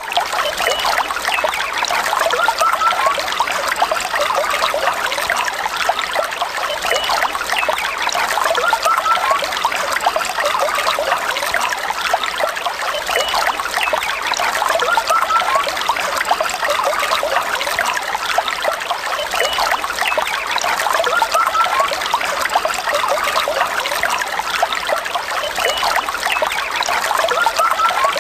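Small stream trickling and babbling over stones, a steady running-water sound.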